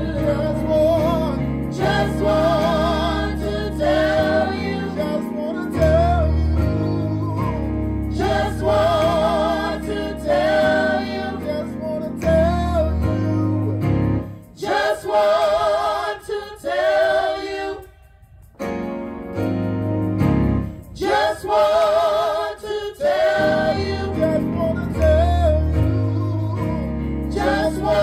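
Gospel singing: a lead voice with a wide vibrato carries the melody over sustained low instrumental chords. The music thins out briefly about two-thirds of the way through, then resumes.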